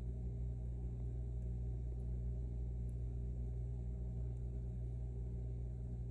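Steady low electrical hum, with a few faint light ticks from a lock pick working inside an M&C Matrix lock.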